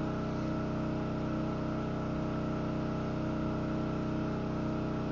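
Generator engine running steadily to power a power washer, a constant hum made of many even tones that does not change.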